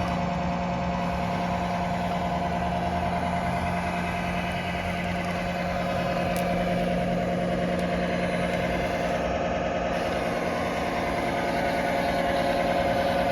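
Simulated excavator engine sound from the model's electronic sound module and small loudspeaker, running steadily at idle with a constant hum, swelling slightly a few times.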